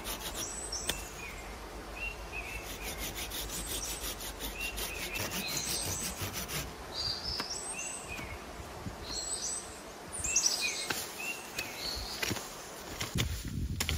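Small birds chirping in short, repeated phrases over a steady background hiss, with a few low bumps and rubbing sounds near the end.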